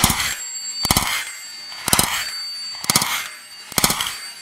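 Gunshots from a 9mm AR-15 carbine fitted with a muzzle brake: five sharp reports about a second apart, with a thin high ringing lingering between shots.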